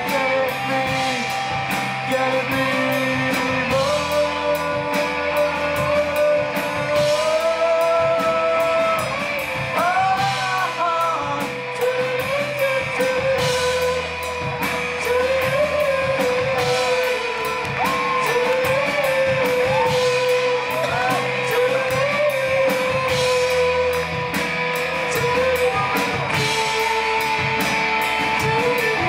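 Live rock band playing a slow rock song: electric guitars, bass and drum kit, with a sung melody line over the top.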